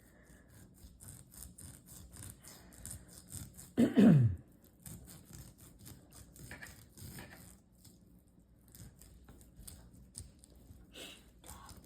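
Knife slicing raw shark meat: a run of short cutting strokes, with one brief, louder sound falling in pitch about four seconds in.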